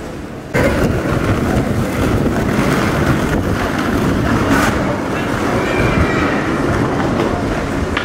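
Street noise in a paved pedestrian street: a loud, steady rolling rumble with light clatter that cuts in suddenly about half a second in.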